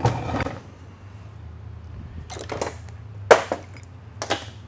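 Sharp metal clanks and clinks of transmission parts and hand tools on a steel workbench, a handful of separate hits with the loudest about three seconds in, over a steady low hum.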